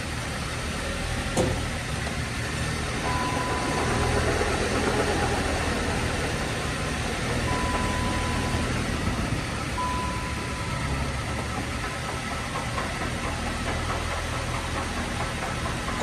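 Dodge Caliber engine running at idle, a steady low hum carrying an odd noise the owner calls wretched and cannot yet place. A single click sounds about a second and a half in, and three brief steady high tones come and go, about three, eight and ten seconds in.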